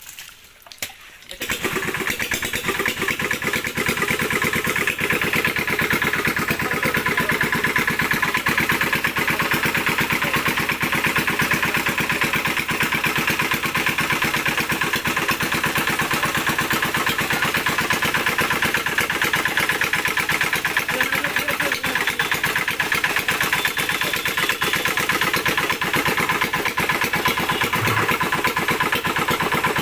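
A small engine comes in suddenly about a second in and then runs steadily at an even speed, its rapid firing pulses unchanging throughout.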